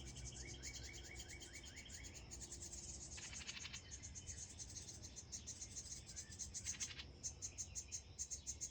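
A bird calls a quick run of about eight short rising notes in the first two seconds, over a steady, fast, high-pitched pulsing chorus of insects. There are two brief raspy bursts, one about three seconds in and one near the end.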